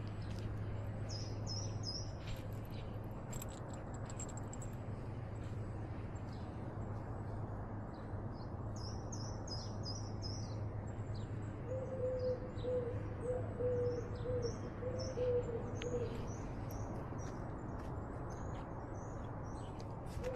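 Birds calling: groups of short, high chirps repeated throughout, and from about twelve seconds in a lower call of short notes strung together. Light scattered clicks and a steady low hum sit beneath.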